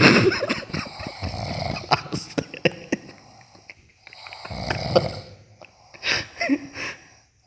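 A man snoring heavily, in long rasping breaths with quiet gaps between them, while his nose is pinched shut to try to stop it. There is a loud burst of sound at the very start, and the snoring carries on.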